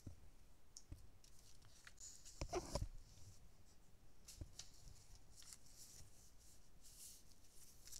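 Quiet room tone with scattered small clicks and soft rustles, and a louder brief rustle about two and a half seconds in.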